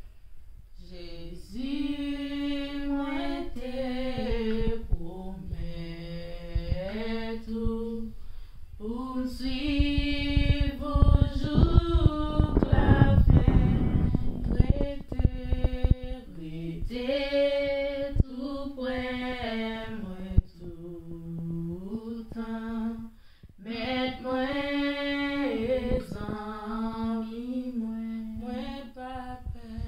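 Two women singing a hymn of praise a cappella, in held, stepwise phrases with short breaks for breath. A low rumbling noise sits under the singing around the middle, at its loudest part.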